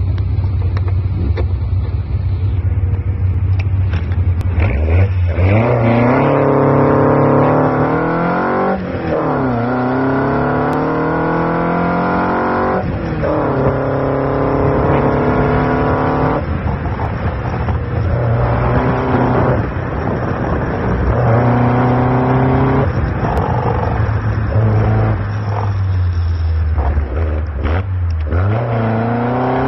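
Tiger Cat E1 kit car's engine heard from on board, running steadily at low revs for about four seconds, then revving hard and accelerating. The pitch climbs and falls back again and again with each gear change and lift for a corner, with a low spell late on before it picks up again near the end.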